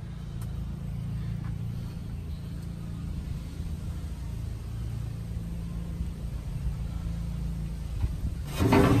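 A steady low hum, with a short louder sound near the end.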